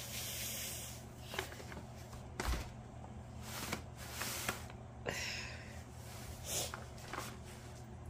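Handling noises: brief rustles and rubs, the longest near the start and about five seconds in, with a few light knocks.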